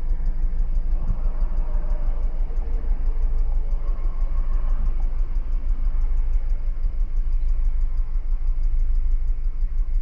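2013 Audi Q5's 2.0-litre turbocharged four-cylinder engine idling, a steady low rumble heard from inside the cabin. The engine is misfiring, with cylinder 3 counting up misfires.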